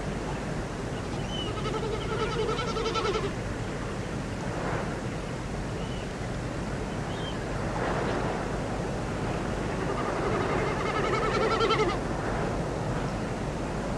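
Outdoor spring-morning nature ambience: a steady rushing noise like wind or distant surf, with a few short bird chirps. Twice, about a second in and again around ten seconds in, a long wavering animal call lasts about two seconds.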